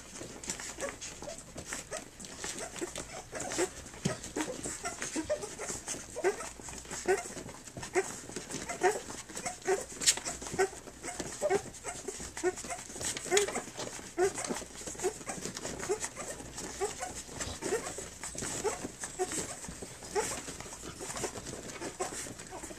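Three-week-old Standard Schnauzer puppies nursing, giving a string of short, low squeaks and grunts, about one or two a second, with faint clicking suckling noises among them.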